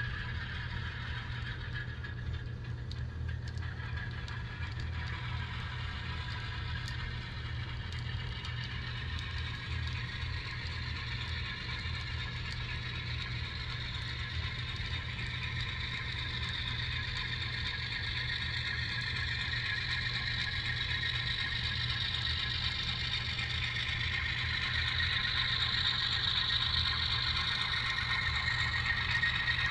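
Factory sound decoder of an HO scale Atlas ALCO diesel locomotive playing a diesel engine running, through its small onboard speaker, with light clicking from model freight cars rolling over the track. It grows louder toward the end as the locomotive draws near.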